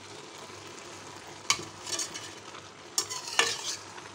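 A spoon stirring grated carrots cooking in steaming water in a pot, over a steady bubbling hiss. The spoon knocks and scrapes against the pan about a second and a half in, and again several times around three seconds in.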